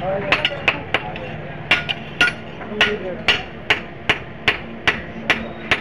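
Blacksmith's hand hammer striking an iron axe head: about fourteen sharp, ringing metal blows, irregular at first, then a steady beat of two to three a second.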